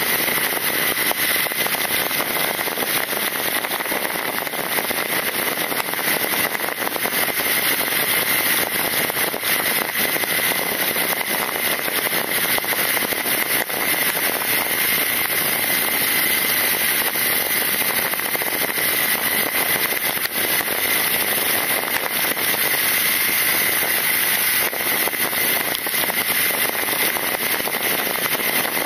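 Wind rushing and crackling over a fork-mounted action camera's microphone on a motorcycle at road speed, steady throughout, with a thin high tone running underneath. The BMW R nineT's boxer engine is barely picked up under the wind.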